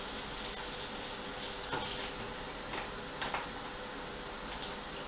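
Lamb chops and a buttered flatbread sizzling in frying pans: a steady hiss with scattered small spitting crackles, over the faint steady hum of a cooker-hood extractor fan.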